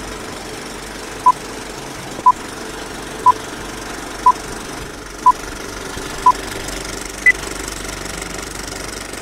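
Film-countdown leader sound: a film projector running with a steady clatter, under six short beeps at the same pitch, one a second, then a seventh, higher-pitched beep a second later.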